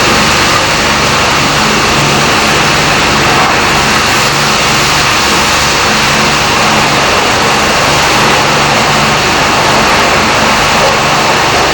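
Car wash machinery running: a loud, steady rushing noise with a low motor hum that fades in and out.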